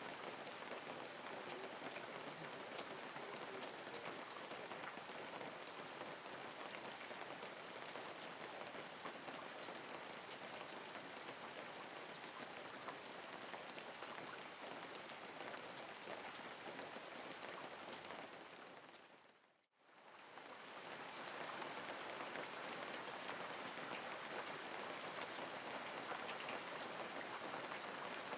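Steady rain falling, an even hiss of drops with fine ticks of individual drops. About two-thirds of the way through it fades quickly to near silence and swells back up within a couple of seconds.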